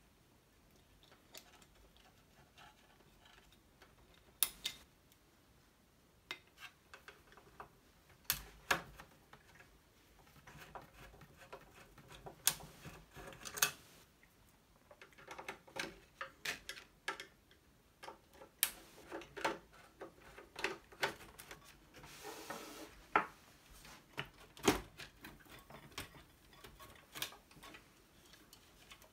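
Irregular clicks, taps and knocks of hands and a screwdriver working on the metal chassis and circuit board of an open Macintosh Plus while the analog board is unfastened and eased out, with a short scraping rush about three-quarters of the way through.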